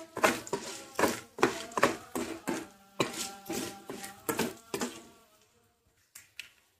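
Metal ladle stirring and scraping fried tempering spices and curry leaves around a metal kadai, a scrape every third to half second, stopping about five seconds in.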